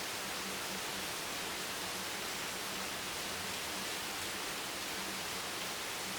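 Heavy rain hammering on a bench: a dense, steady hiss of drops with no single strike standing out.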